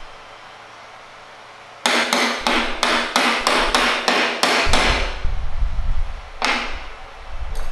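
Hammer blows on wood: a quick run of about ten strikes, then two more spaced strikes, with a low rumble under the later part.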